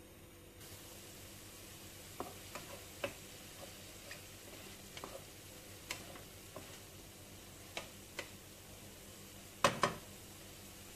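Ground beef frying in oil in a pan, sizzling steadily as its juices cook off, while a wooden spatula stirs it with scattered clicks and knocks against the pan. The loudest are two knocks close together near the end.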